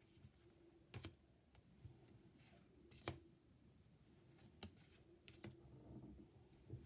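Near silence in a small room, broken by about five faint, sharp clicks: one about a second in, the loudest about three seconds in, and a few more between four and a half and five and a half seconds in.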